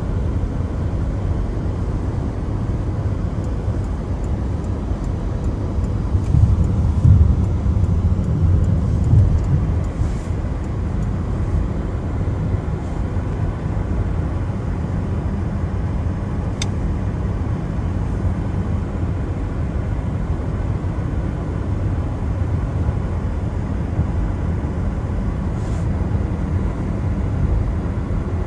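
Car driving on a wet road in the rain: a steady low rumble of tyres and engine, growing louder for a few seconds about six seconds in.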